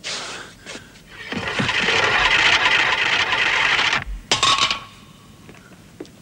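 Heavy cloth scraping and rustling as a padded bundle is shifted: a sudden scrape at the start, then about three seconds of loud, continuous rough scraping, with a couple of short scrapes just after.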